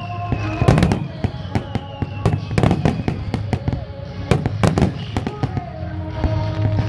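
Fireworks shells bursting in rapid, irregular succession, about a dozen sharp bangs, over music with long held notes.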